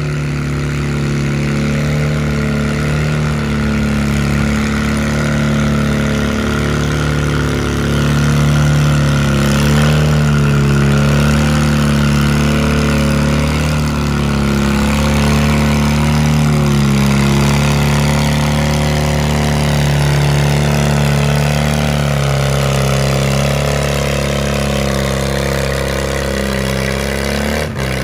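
Farmall Super H tractor's four-cylinder engine running steadily under load as it pulls a weight-transfer sled. Its pitch wavers and drops slightly in the last few seconds as the engine lugs down.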